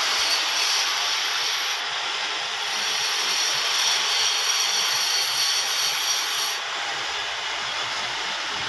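Lathe cutting a spinning workpiece: a steady hiss with a thin high whine over it that breaks off briefly about two seconds in and stops about six and a half seconds in.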